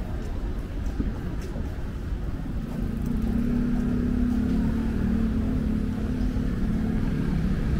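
Street traffic rumble, with a motor vehicle's engine humming steadily close by from about three seconds in, when the sound gets louder.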